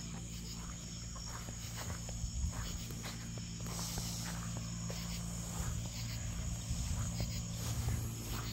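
Crickets and other night insects chirping steadily in a high band, over a low steady hum, with scattered soft footsteps or rustles in the grass.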